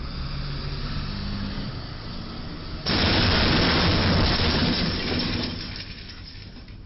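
A box truck's roof striking the overhead beam of a low railroad bridge: a sudden loud crash about three seconds in, then a couple of seconds of crunching, scraping metal as the box top is peeled back, fading out. Before the impact the truck's engine runs steadily.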